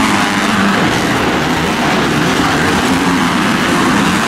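Motocross dirt bike engines racing, their pitch wavering up and down under the throttle.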